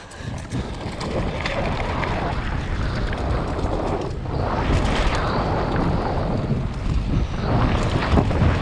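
Wind rushing over the microphone as a mountain bike rides fast down a dirt jump trail, a loud steady rush with a few short knocks and rattles.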